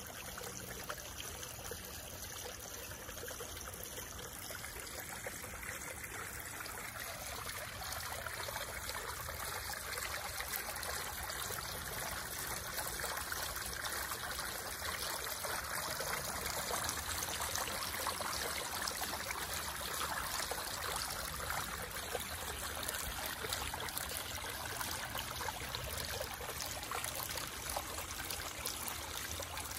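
Water trickling and splashing steadily over a dome-shaped rock fountain, growing a little louder partway through.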